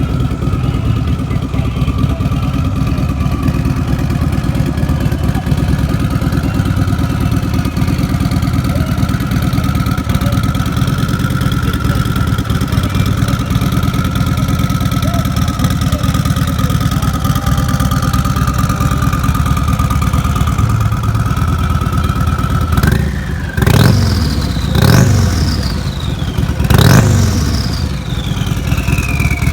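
Turbocharged Harley-Davidson Street Glide V-twin idling with a steady turbo whistle over the engine. Near the end it is blipped three times; each rev sends the turbo whistle shooting up in pitch, then sliding back down as the turbo spools down.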